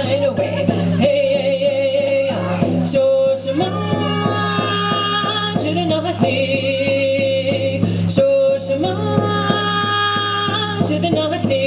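A woman singing long held notes with vibrato into a microphone, keeping a steady beat on a hand-held frame drum.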